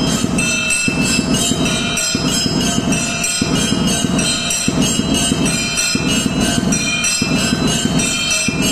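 Hindu temple puja: bells ringing continuously, with a rhythmic pulse that repeats about every second and a quarter.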